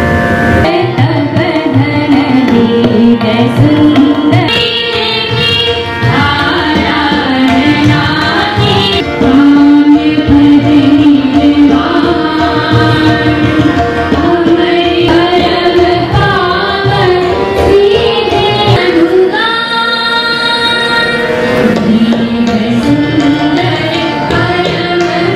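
Indian classical-style singing with tabla accompaniment: a sustained, ornamented vocal line over a steady drone.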